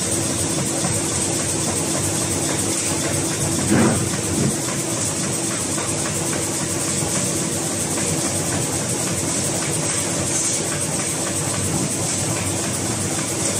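Automatic high-speed paper mounting machine running steadily: a continuous mechanical clatter and hum as sheets feed through. Two louder knocks come about four seconds in.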